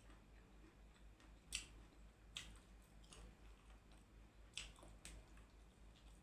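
Quiet eating sounds close to the microphone: about five sharp, short mouth clicks and crunches spread over the few seconds, the loudest about a second and a half in.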